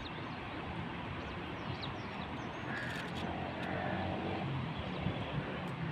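Steady rushing noise of the river and wind, with a short bird call about halfway through.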